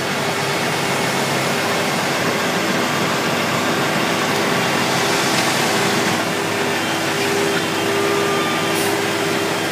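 Steady drone of the diesel engines of a dump truck and an asphalt paver running while the raised truck bed feeds hot asphalt into the paver, with a faint steady hum under the noise.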